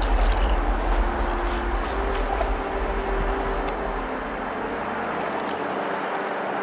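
Waders sloshing through shallow water as a person wades in, with water swirling and lapping around the legs; a heavy low thump right at the start fades away over the first few seconds.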